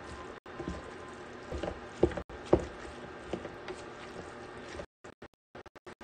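Chicken and chorizo sizzling in a metal skillet while a spatula stirs them, with a few scrapes and knocks of the spatula against the pan, the loudest about two and two and a half seconds in. The sound cuts out in several short gaps near the end.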